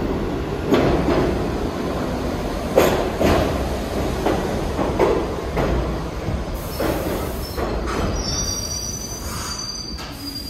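New York City subway train running on the rails, its wheels knocking over rail joints again and again, then a thin, high wheel squeal in the last couple of seconds as the loudness eases.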